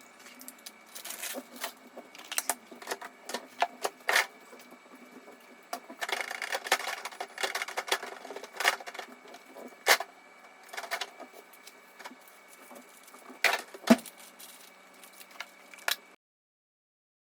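Irregular clicks, knocks and rustling of small household items being handled and set down, with a longer rustle about six seconds in. The sound cuts to dead silence shortly before the end.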